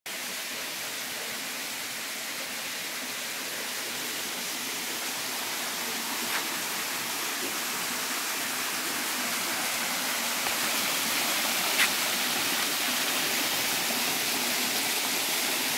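Water rushing over a rock ledge of a small waterfall into a pool: a steady hiss that grows gradually louder, with two brief ticks partway through.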